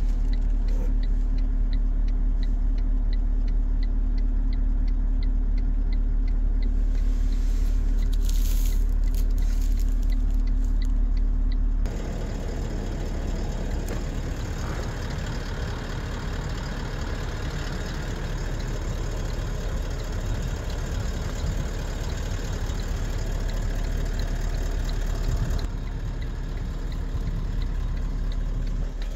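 Toyota Land Cruiser's 4.5-litre V8 turbo diesel idling with a steady low hum. About twelve seconds in, the sound changes abruptly to a rougher, noisier rumble.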